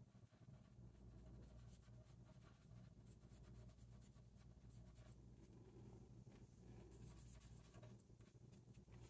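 Faint scratching of a colouring tool on paper in short, irregular strokes, over a low steady hum.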